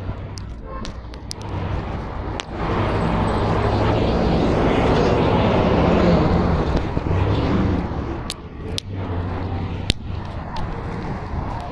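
A car passing close by: its noise swells over a few seconds, peaks about six seconds in, then fades. Sharp clicks and rustles of the phone being handled are heard here and there.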